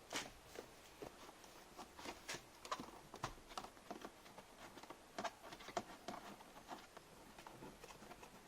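Plastic interior trim being handled and fitted into place: irregular light clicks, taps and knocks.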